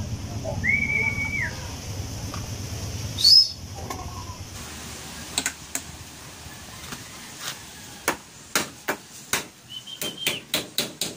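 A short whistled note about a second in. After that, a run of sharp clicks, about three a second, from a plastic feed bowl rattled to call racing pigeons down to the loft.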